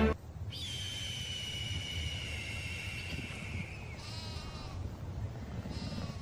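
A long, high whistling animal call falling slightly in pitch over about three seconds, then a short rapid trill about four seconds in and a brief call near the end, over a steady low wind-like rumble.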